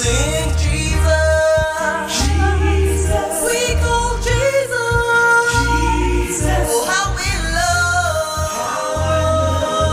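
Gospel choir singing a praise song with band accompaniment, a heavy bass line underneath.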